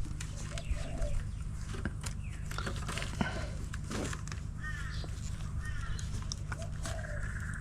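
Small clicks and rustles of a wiring harness being worked through a motorcycle frame, with a few short clucking bird calls in the background around the middle and near the end.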